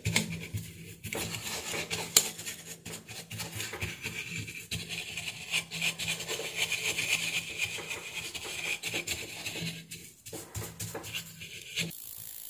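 A brush scrubbing dust off a power-supply circuit board: an irregular scratchy rubbing with many small clicks as the bristles catch on the components. It stops shortly before the end.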